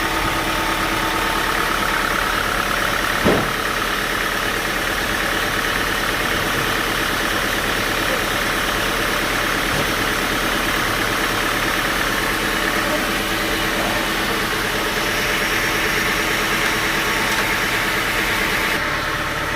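Sawmill machinery running steadily, a constant mechanical hum with several steady tones. There is a brief louder sound about three seconds in.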